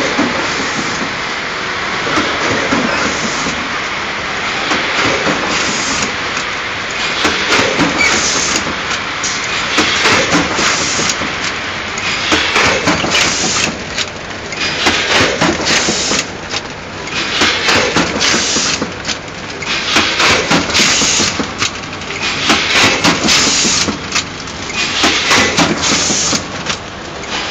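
Stand-up zipper-pouch packing machine running: a steady mechanical clatter with short, sharp clicks and hisses recurring every second or so, coming more often in the second half.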